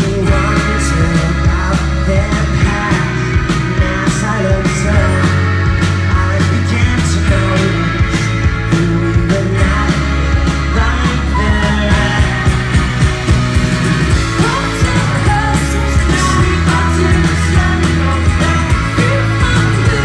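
Indie folk-rock band playing live at full volume: acoustic and electric guitars, accordion, keyboards and drums under sung vocals, with a strong, steady bass line.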